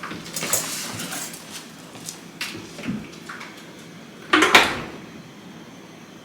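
Light knocks and clicks of a door and household things being handled, with one louder clattering bump about four and a half seconds in.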